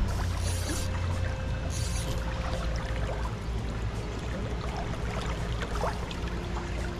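River water flowing and trickling close by, with a steady low rumble and small splashes, and two brief splashy hisses in the first two seconds.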